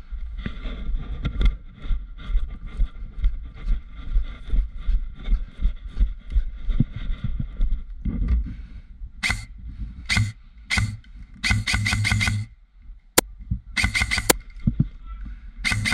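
Rumble of wind and movement on a helmet-mounted camera for the first half. From about nine seconds on come several short bursts of airsoft rifle fire, with a couple of single sharp shots near the end.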